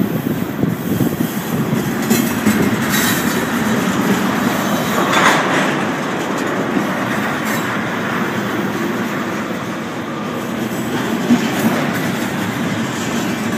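Freight train tank cars rolling past close by: a steady, loud rumble and clatter of steel wheels on the rails, with a brief harsher patch about five seconds in.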